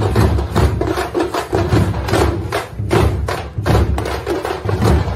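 Drum-heavy music: a fast, dense run of drum strikes, several a second, with a strong low thud under each.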